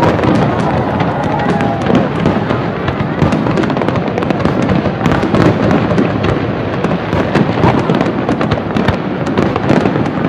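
Aerial fireworks display going off in a rapid, unbroken stream of bangs and crackles.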